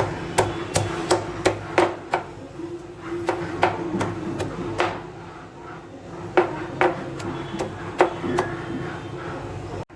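Repeated hard pounding blows, about three a second for the first two seconds, then slower and irregular, with the loudest blows about six and a half and eight seconds in.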